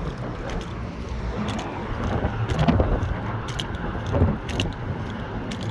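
Footsteps on a bridge walkway, about one a second, over a steady rumble of passing road traffic, with two louder swells a little before the middle and near the end.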